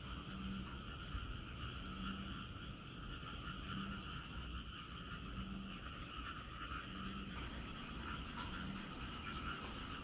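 A chorus of frogs calling steadily in layers, with a low croak repeating about every second and a half and a quick high pulsing that stops about seven seconds in.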